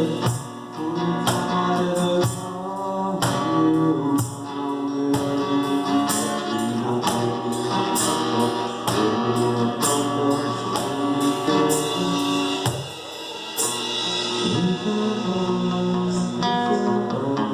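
Live acoustic two-piece band playing: an acoustic guitar with percussion keeping a steady beat, and a singing voice over it.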